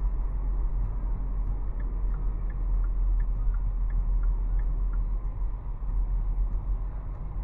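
Steady road and tyre noise with a low rumble, heard inside a 2023 Hyundai Tucson cruising at highway speed.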